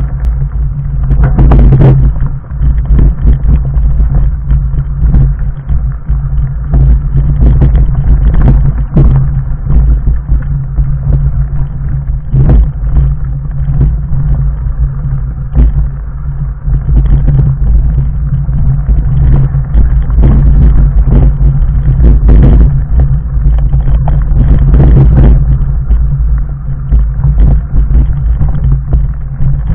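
Fat bike on Schwalbe Jumbo Jim 4-inch tyres rolling down a loose stony trail: a constant low rumble with frequent knocks and rattles as the tyres hit stones.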